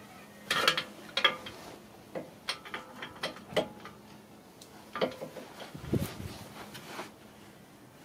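Hand ratchet wrench clicking in short, irregular runs on a front brake caliper bolt, mixed with metal clinks of the tool. The busiest clatter comes between about half a second and a second and a half in.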